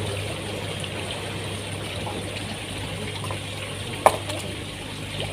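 Steady running, trickling water over a constant low hum, with one sharp click about four seconds in.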